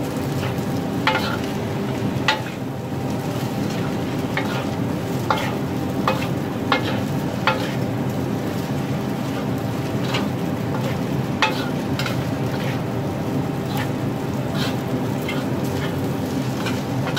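Metal spatula scraping and clinking against an iron wok as egg fried rice is stir-fried, with sharp irregular clinks about once a second. Underneath runs a steady frying sizzle and a low hum.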